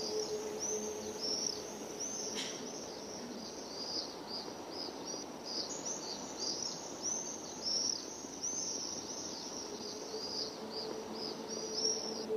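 Many birds chirping in quick, repeated arched calls over a steady hiss. A faint held low tone sounds at the start and returns from about ten seconds in, and there is a single click about two seconds in.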